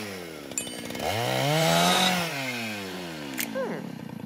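Cartoon bird character's long, rough scream, rising then falling in pitch over about two and a half seconds, followed by a short falling squawk near the end.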